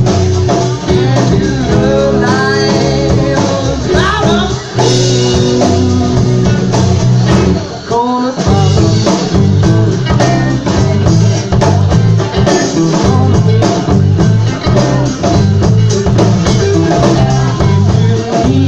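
Live band playing a blues/rock-and-roll number with guitar, bass and drums, and a melodic line that may be singing. The music drops out briefly about eight seconds in, then the full band comes back in with a driving bass rhythm.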